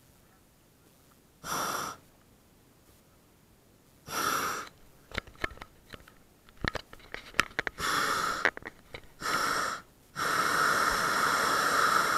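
Hot-air balloon propane burner firing in abrupt blasts, each a rushing hiss with a steady whine: a short one about a second and a half in, another around four seconds, then several more from about eight seconds, with a longer burn near the end. Scattered sharp clicks and knocks come between the blasts.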